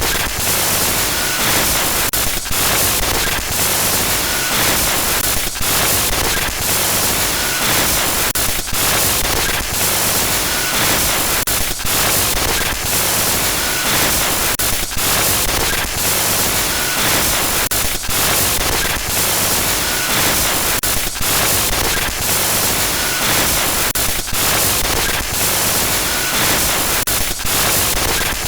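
Glitch noise sound effect: loud, harsh static hiss that cuts out briefly every second or two, with a faint short tone recurring about every three seconds.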